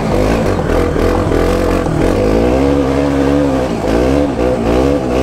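Motorcycle engine running under changing throttle on a dirt trail, its note rising and falling again and again as the rider rolls on and off.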